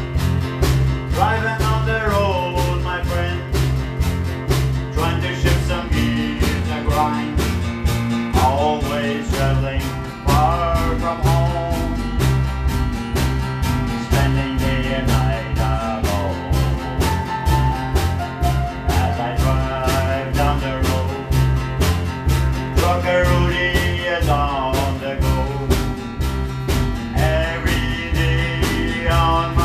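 Country-style band playing a song: drum kit keeping a steady beat under electric bass and acoustic guitars, with a melody carried in phrases over it.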